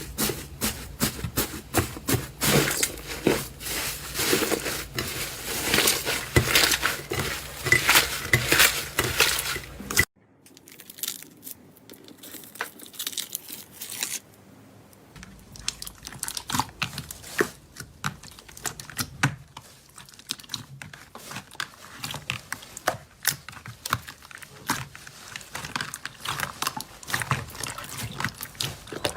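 Slime being squeezed and worked by hand, giving dense crackling and popping. About a third of the way through this stops abruptly, then resumes softer with scattered pops.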